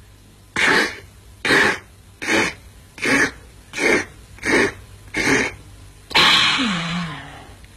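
A man's voice making pretend gulping sounds, seven swallows about one every three-quarters of a second, as if drinking a glass of cold water. It ends with one long breathy "aah" falling in pitch.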